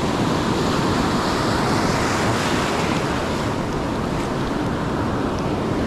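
Ocean surf breaking and washing up the beach in a steady rush, swelling a little about two seconds in.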